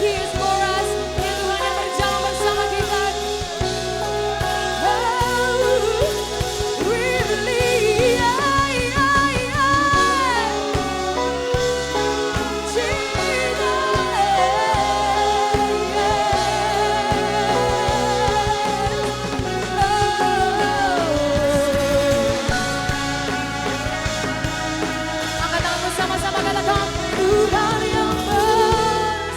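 Live pop-rock worship band music: drums, bass and keyboards under a lead melody that bends and wavers with vibrato.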